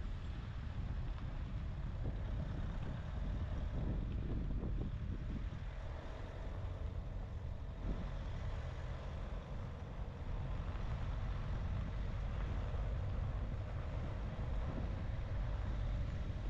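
Car driving: a steady low rumble of engine and tyres with wind noise, and one short knock about halfway through.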